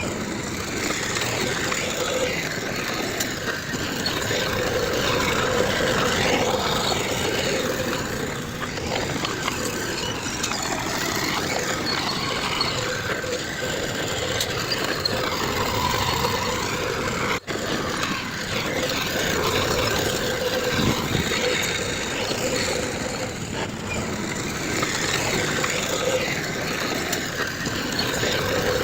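Diesel engines of heavy earthmoving machinery running steadily under work, with a steady hum through the noise. The sound drops out for an instant about two-thirds of the way through.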